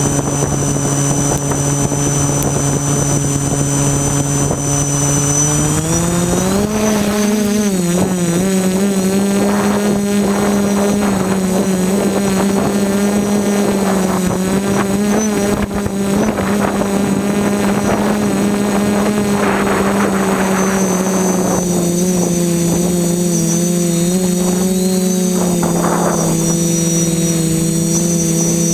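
FPV drone's electric motors and propellers humming at idle on the ground, rising in pitch about six seconds in as it takes off, then a steady hum with small pitch changes as it flies, heard from the GoPro mounted on the craft.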